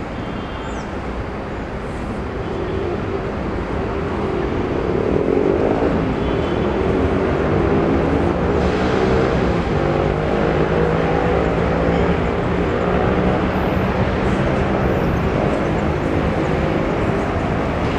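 Electric metro train running, with a rumble and a motor hum that climbs slowly in pitch. It grows louder over the first few seconds, then holds steady.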